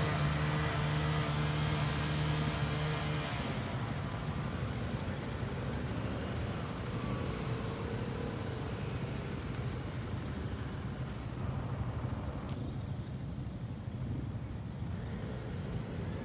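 Motorcycle engines running. A nearby engine holds a steady note for the first three seconds or so, then cuts off, leaving a fainter, rougher rumble of motorcycles being ridden.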